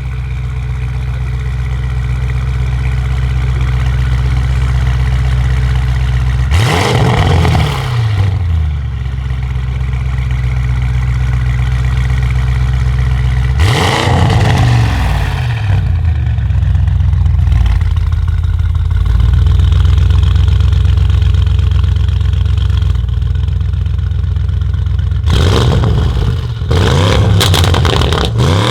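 Audi RS6 C8 Avant's twin-turbo V8 with a Capristo exhaust idling, blipped hard twice to high revs that fall straight back to idle. Near the end it takes a quick series of revs with rapid crackles and pops from the exhaust.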